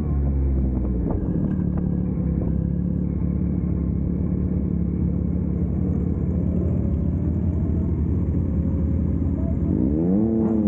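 Motorcycle engine idling steadily, then revved briefly near the end, its pitch rising and dropping back.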